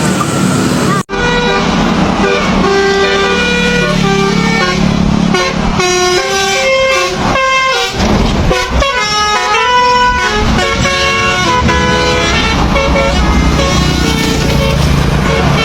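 Basuri telolet horn on a truck playing a tune of quick, stepping notes that rise and fall, over the low hum of the engine. The sound cuts abruptly about a second in, and the horn melody starts after the cut.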